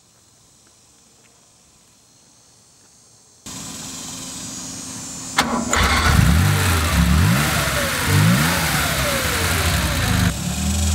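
A 1974 Porsche 911 Carrera's air-cooled flat-six engine starting: the starter cranks for about two seconds, the engine catches, is revved up and down twice, then settles to a steady idle.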